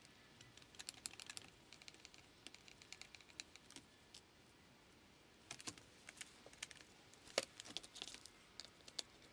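Faint, scattered light clicks and scrapes of a screwdriver and then a small blade working a small metal fitting off the arm of an antique treadle scroll saw.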